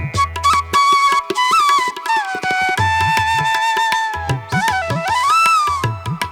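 Background music: a flute melody over a tabla rhythm.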